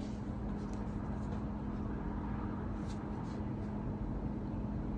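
Steady low background hum and rumble, with a few faint soft ticks as a card is set down on a table.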